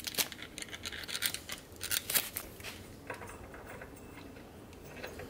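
Light metallic clicks and scraping of a spark plug and socket being handled and the plug turned by hand in threads it has cut for itself in a soft aluminium head. The clicks come thickly for about the first two and a half seconds, then fade to a few faint ticks.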